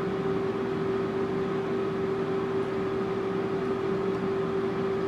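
Steady mechanical hum of a small motor, one unchanging tone over a soft hiss, with no breaks.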